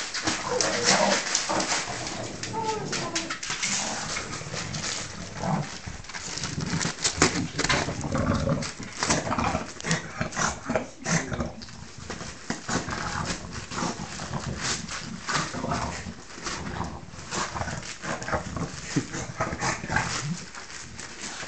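A bulldog worrying a shiny wrapped present, the wrapping crackling and rustling in quick irregular bursts, mixed with sounds from the dog itself.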